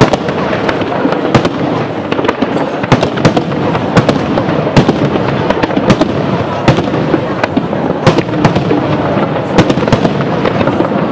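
Japanese aerial firework shells bursting: many sharp bangs in quick, irregular succession, one to three a second, over a steady background of noise from the display.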